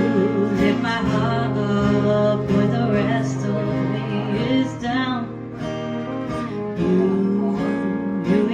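Song with acoustic guitar and a melodic, wordless-sounding vocal line over a steady bass.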